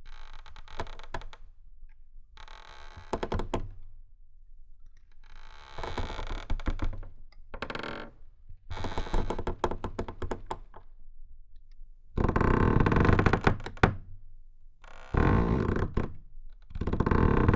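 Old wooden fence boards screwed together, flexed and worked against each other, creaking in a series of about eight bursts of rapid ticking friction, each one to two seconds long. The last three bursts are the loudest. The sound is picked up partly through geophones screwed into the wood.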